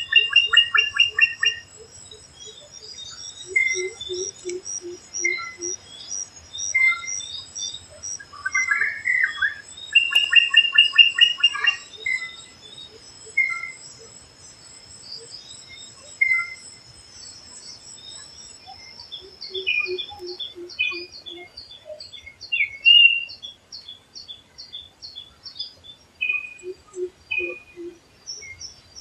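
A chorus of forest birds, several species calling and chirping. A quick run of low notes comes three times, and a steady high insect whine stops about two-thirds of the way through.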